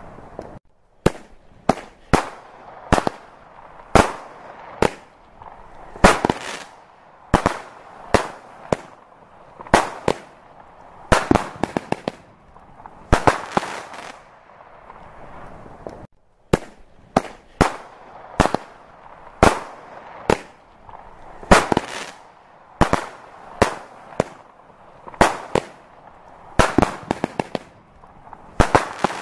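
Fireworks display: a continuous series of aerial shell bursts, sharp bangs about one or two a second, some in quick clusters, each trailing off briefly.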